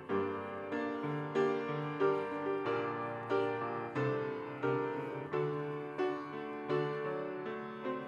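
Grand piano played solo: a slow hymn tune with chords struck about every two-thirds of a second, each ringing and fading before the next.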